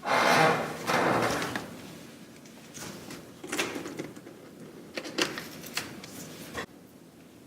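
Hands handling a medium-format camera body while taking off its lens: two rustling swishes, then a series of light clicks and knocks from the mount.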